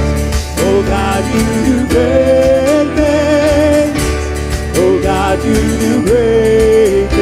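Live worship band music with long held, slightly wavering sung notes over a steady bass.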